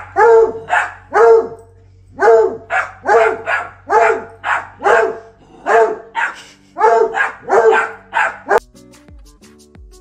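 A dog barking over and over, loud sharp barks in quick runs of two or three, that stop abruptly about eight and a half seconds in.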